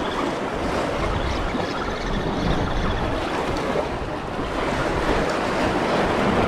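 Small waves washing and breaking against jetty rocks, with wind buffeting the microphone.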